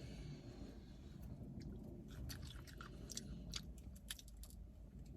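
A person chewing food from a seafood boil close to the microphone: irregular wet clicks and smacks of the mouth, faint, over a low steady hum.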